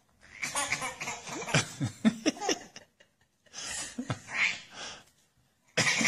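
Laughter in three bursts with short pauses between them.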